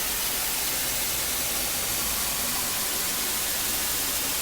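Steady static hiss, even across all pitches and unchanging in level, like white noise or TV static.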